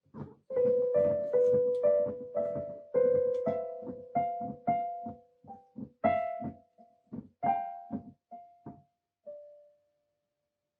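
Piano notes struck one at a time, about two a second, each ringing and decaying. The notes grow sparser and quieter toward the end, and the last one is left to ring out.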